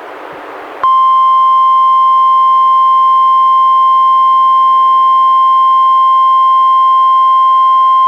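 NOAA Weather Radio's 1050 Hz warning alarm tone, sounded as part of a required weekly test: after under a second of receiver hiss it switches on abruptly and holds one steady, loud pitch.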